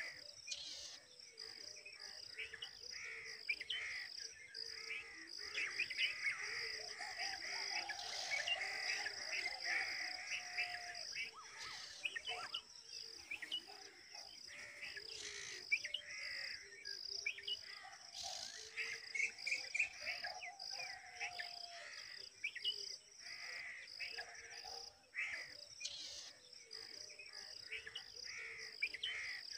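Red-vented bulbul nestlings begging: many rapid, high chirps coming in uneven bursts. Beneath them runs a steady, high insect buzz.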